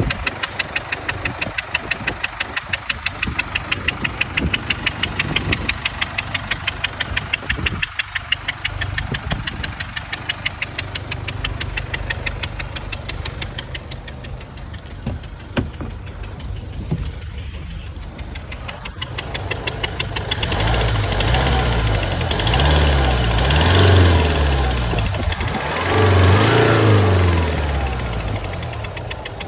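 2018 Range Rover Velar diesel engine idling with a steady, rhythmic knock, then revved up and back down twice near the end. The owner suspects an engine fault on a nearly new car, with only about 100 km on it.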